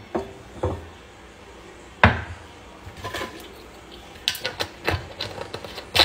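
Glass syrup bottles, a pour spout and caps handled on a stone countertop: a loud knock about two seconds in, then a quick run of light clicks and taps.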